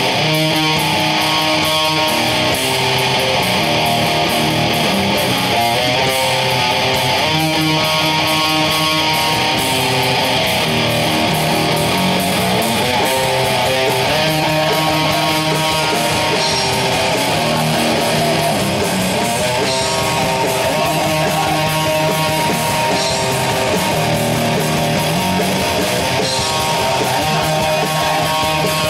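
Grindcore band playing live at full volume: heavily distorted electric guitar and bass riffing over drums and cymbals, with riffs that change pitch every second or so.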